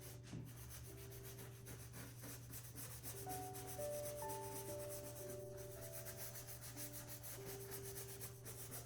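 Faint scratchy rubbing of a paintbrush scrubbing thinned acrylic paint onto canvas, over soft background music of slow held notes and a steady low hum.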